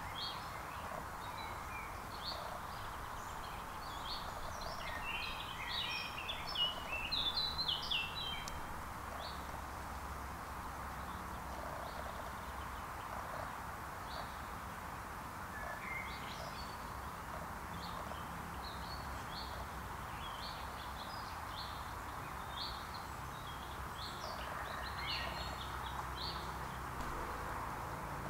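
Woodland birdsong: a quick run of high chirping notes about five to eight seconds in, then scattered calls, over a steady background hiss.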